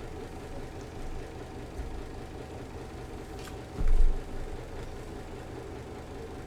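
Steady low rumble with a faint hum. One heavy low thump about four seconds in is the loudest sound, with a lighter one about two seconds in.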